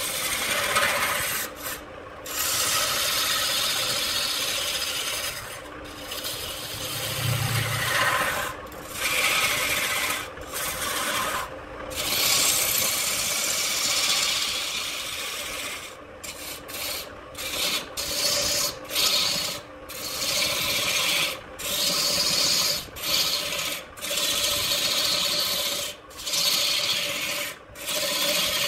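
Hand-held turning tool cutting into a wooden blank spinning on a wood lathe: a continuous rasping scrape of steel on wood, broken by many short breaks that come more often in the second half, over the lathe's steady running tone.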